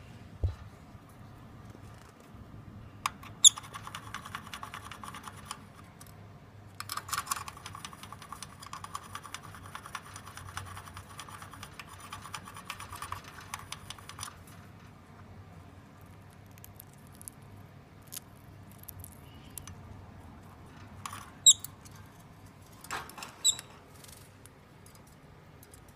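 Peach-faced lovebird eating at a cage seed cup: long runs of rapid small clicks and crunches from husking seeds, then a few sharper, louder clicks near the end.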